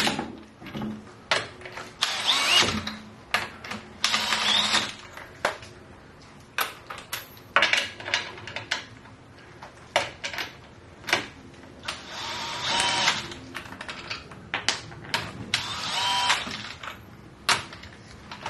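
Impact wrench spinning lug nuts onto a car wheel in about five short whirring bursts, with sharp clicks and knocks between them as the socket moves from nut to nut. The wrench is set low, just to snug the nuts before they are torqued by hand.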